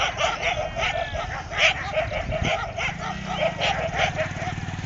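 Dogs barking and yipping in rapid, repeated calls. A motorcycle engine runs underneath and grows louder in the last second or two as it comes close.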